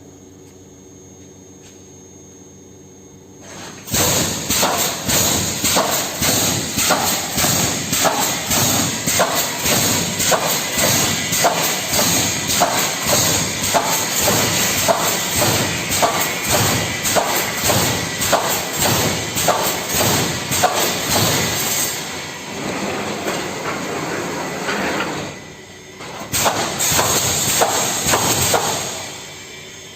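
Pneumatic wire mesh welding machine starting up about four seconds in and cycling: evenly repeated knocks of its welding strokes, about two a second, over a hiss. It eases off a little later on, stops briefly, runs again, and winds down near the end.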